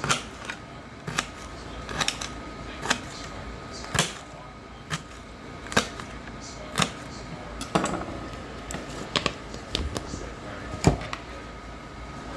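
Kitchen work: a series of sharp knocks and clicks at uneven spacing, roughly one a second, over a faint steady hum.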